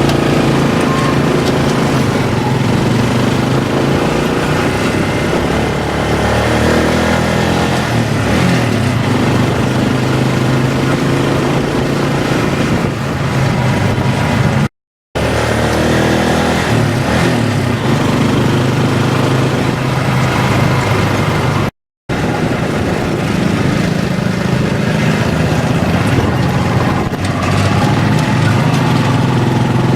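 A motor vehicle running steadily on the move, with engine hum and road or wind noise. It cuts out abruptly twice, for a moment each time.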